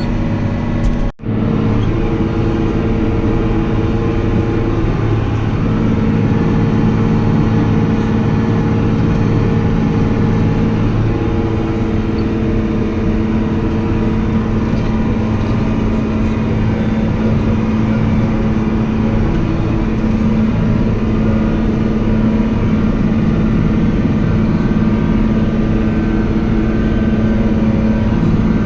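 Tractor engine running steadily under load, with a brief break in the sound about a second in.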